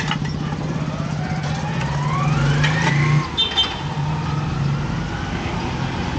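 A motor vehicle's engine running with a steady low hum, and a whine that rises smoothly in pitch over about two seconds as it speeds up. A brief high beep comes about three and a half seconds in.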